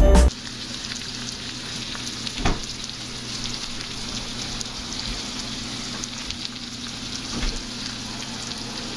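Cheese-topped chicken and vegetables sizzling and crackling steadily in a cast iron skillet as the cheese melts. A dull knock comes about two and a half seconds in.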